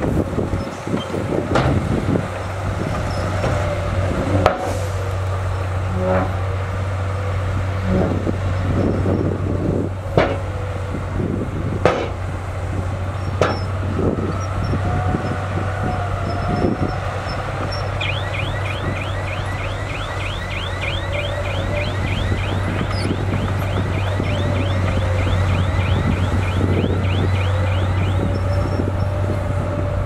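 Heavy diesel engines of a Komatsu bulldozer and dump trucks running steadily with a low drone, with scattered knocks and clanks through the first half. Past the middle, a rapid high-pitched chirping repeats about four times a second for around ten seconds.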